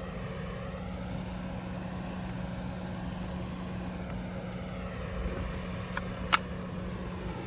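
LiftMaster Formula 1 3280 garage door opener running, its motor giving a steady low hum as it drives the door, with one sharp click about six seconds in.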